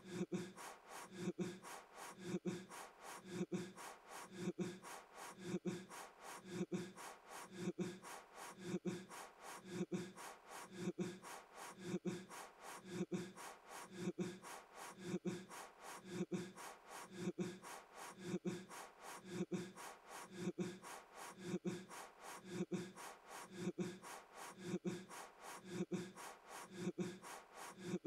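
A man blowing hard at a trick birthday candle that will not go out, in short puffs of breath evenly spaced about one a second.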